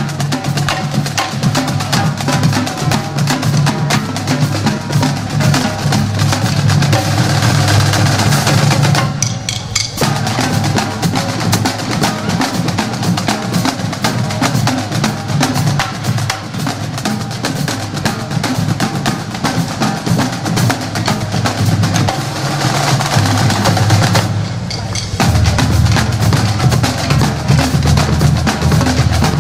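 Parade drumming with music: snare and bass drums played together. The drumming breaks off briefly about nine seconds in and again about twenty-four seconds in.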